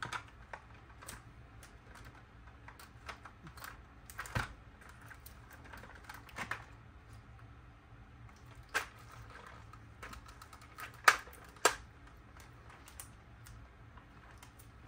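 Hard plastic toy parts clicking and tapping together as they are handled, in irregular scattered clicks, with a few sharper ones, two of them close together about eleven seconds in.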